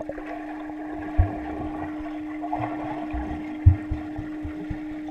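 Muffled underwater sound in a swimming pool, heard with the microphone submerged. There is a steady hum and a few dull low thumps, the loudest a little past the middle.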